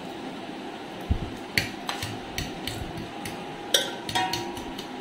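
A ladle tapping and scraping against the bottom of an aluminium dekchi as thick gravy is spread over it: a handful of sharp clinks. The loudest comes near the end and rings briefly like metal.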